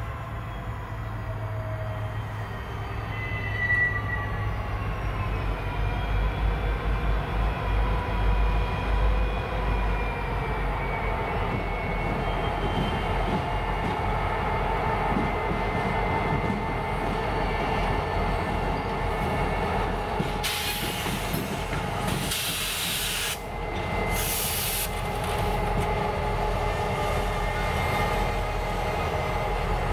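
A pair of EMD SD50-2 diesel locomotives running as they pull a cut of tank cars slowly past: a steady low engine drone, with wheels squealing in thin high tones. About two-thirds of the way through come three short blasts of hissing air.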